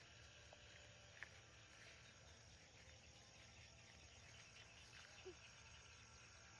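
Near silence, with faint insect chirping and a couple of soft ticks.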